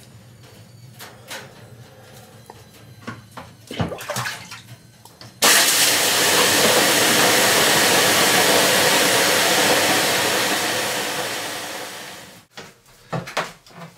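Löyly: a ladle of water thrown onto the hot stones of a sauna stove, setting off a sudden loud hiss of steam about five seconds in that holds for several seconds and then fades away. A few light knocks and clatters come before it.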